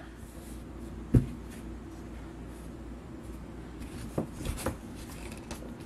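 Light handling noises from objects set down on a table: one sharp knock about a second in and a few softer taps a little after the midpoint, over a low steady hum.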